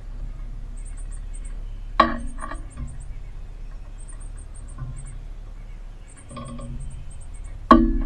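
Sharp knocks with a short ringing on the metal feeder pole and perch as cardinals land and take off, about two seconds in and again near the end. A high, rapid chirping repeats in short groups throughout.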